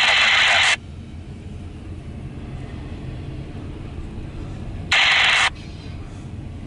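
Low, steady rumble of a double-stack intermodal freight train rolling past, heard from inside a vehicle. A loud hiss cuts off abruptly under a second in, and a second short burst of hiss, about half a second long, comes about five seconds in.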